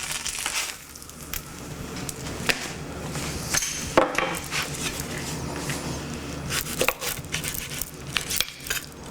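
Knife and utensils knocking and cutting on a wooden cutting board, a string of scattered sharp taps, after a frying sizzle that dies away in the first second.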